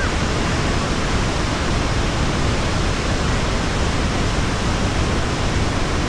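A large waterfall in flood, a broad, muddy river pouring over rock ledges, giving a steady, unbroken rush of falling water.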